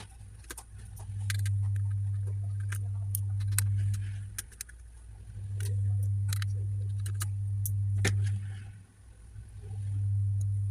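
A low steady hum comes on for about three seconds at a time, three times, with short breaks in between. Light sharp clicks and taps of small hard parts being handled are scattered through it.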